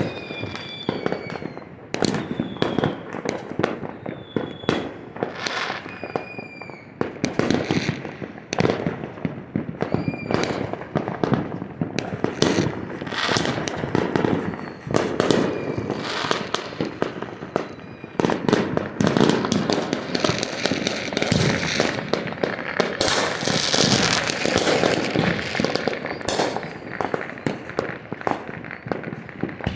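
Fireworks going off without pause, with many overlapping bangs and pops at irregular intervals. A few short high whistles come in the first several seconds, and a dense burst of crackling comes about two-thirds of the way through.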